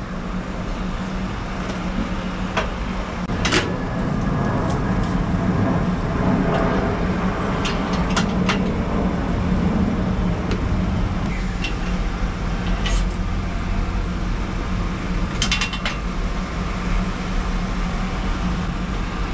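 Steady mechanical hum with a constant low tone, louder for a few seconds in the middle, with scattered short clicks and knocks of handled metal parts.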